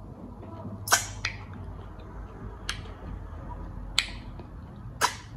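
Wet mouth smacks and sucking as slimy okra and egusi soup is eaten off the fingers: five sharp smacks, the loudest about a second in, over a faint low hum.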